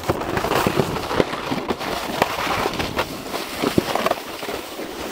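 Irregular crunching and crackling with many sharp clicks: a handheld camera being jostled close to the microphone while its holder walks through packed snow.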